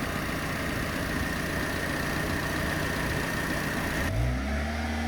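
Peugeot 206 engine on its first start after standing for half a year, running with a steady hiss and a faint high whine; about four seconds in, a deeper, stronger engine note sets in and its pitch rises and falls.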